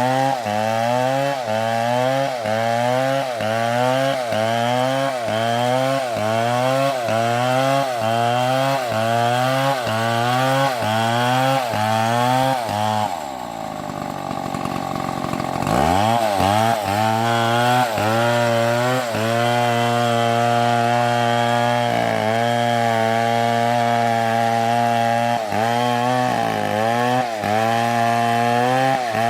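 Large chainsaw cutting wood, its engine pitch rising and sagging about once a second as the chain bites. It drops to idle about halfway through, then revs back up and runs at a steady high speed with a few brief dips.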